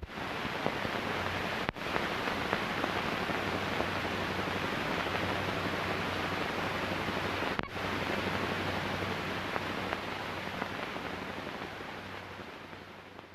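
Steady hiss and low hum of an old sound-film track with no speech on it, broken by two brief dropouts, and fading out at the end.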